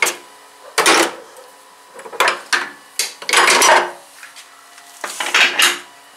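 Steel tooling clattering and scraping at the tailstock of a 1K62 lathe as the drill is taken out and a center fitted in its place: four separate bursts of metal knocking and scraping, the longest a little past three seconds in.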